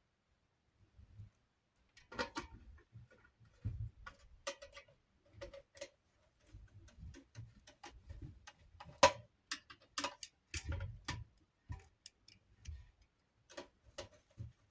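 Irregular metal clicks and taps from working a badly fitting screw into a ceiling fan's metal motor housing. They start about two seconds in, with one sharper click about nine seconds in.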